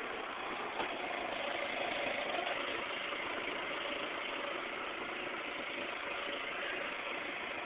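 Steady running of a car engine, with a small click about a second in.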